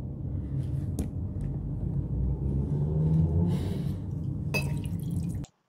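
Steady low background rumble, the room noise of the recording, with a couple of faint clicks. It cuts off abruptly about five and a half seconds in.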